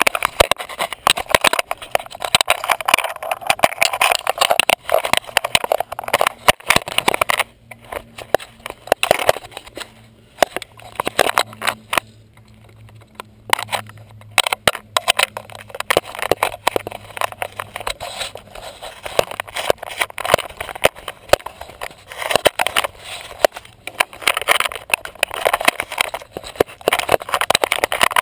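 Mountain bike rattling and clattering down a rough dirt trail, tyres crackling over dirt and leaves. The rattle eases for a few seconds near the middle, then builds again.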